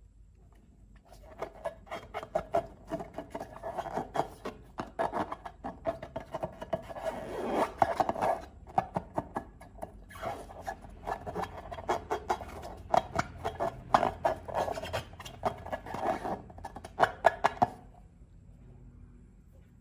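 Slime being squeezed and worked by hand, giving a dense run of wet, sticky clicks and small pops. It starts about a second in and stops a couple of seconds before the end.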